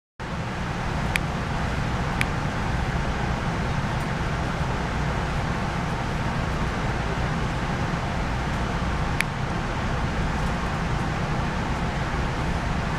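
Steady low rumble of an Amtrak passenger train heard from inside the coach, with a few isolated sharp clicks.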